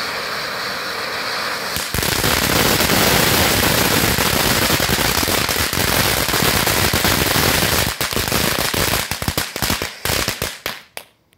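Bright Star ground fountain firework spraying with a steady hiss, then about two seconds in breaking into a loud, dense crackle of bursting effects. The crackle thins into scattered separate pops over the last few seconds and dies out.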